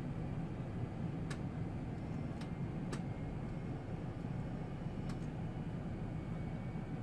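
Steady low rumble of an Airbus A380 in its climb after take-off, with four faint sharp clicks scattered through it.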